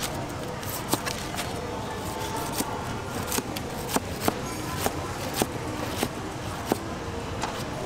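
A large knife slicing the rind off a pineapple, the blade knocking sharply and irregularly on the cutting board, over steady background noise.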